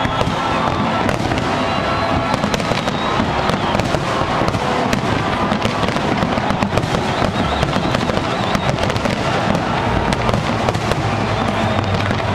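A large fireworks display: a dense, continuous barrage of bangs and crackling shells with no pause, with music playing underneath.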